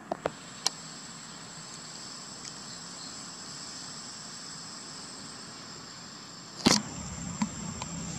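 Steady high-pitched insect drone with a thin whining tone in it. There are a few sharp clicks in the first second, then one loud knock about six and a half seconds in, followed by low rustling.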